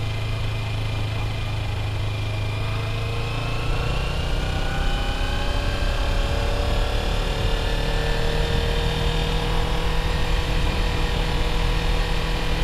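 Sport motorcycle's engine heard from the rider's seat, pulling in second gear at low speed: steady at first, then its pitch rises slowly over several seconds as the bike speeds up, and levels off. A low wind rumble on the microphone grows as the speed picks up.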